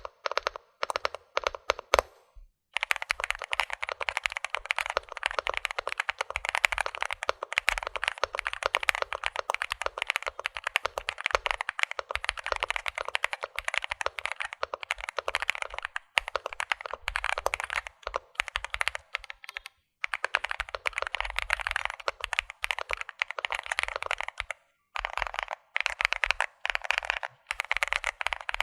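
Fast typing on an Infi75 mechanical keyboard with unlubricated TTC Xizi switches and doubleshot PBT keycaps: a rapid, continuous run of key clicks, broken by a few brief pauses.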